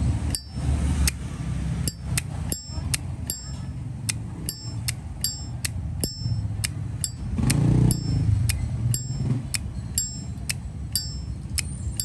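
Zippo lighter lid flicked open and snapped shut again and again: sharp metallic clicks with a short bright ring, about two or three a second. It is the lid-and-hinge sound that collectors judge a Zippo by.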